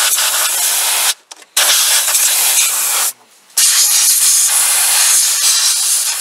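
Compressed-air blow gun hissing in long blasts, cut off twice briefly: about a second in and about three seconds in. The air is blowing dirt out from around the coil packs and spark plug wells before the plugs are removed.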